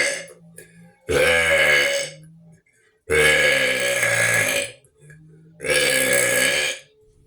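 A person burping deliberately, in a long string: the end of one burp, then three long, loud burps with short pauses between, the middle one the longest.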